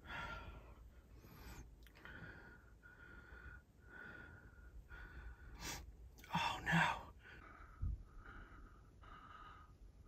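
A person breathing hard and fast, out of breath, each breath a soft rush repeating about one and a half times a second. A louder breath comes about six and a half seconds in, and a short low thump near eight seconds.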